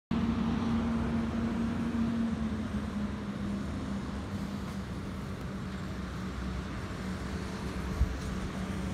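A steady low mechanical hum over a wash of noise, its pitch stepping down slightly a couple of seconds in, with a single thump near the end.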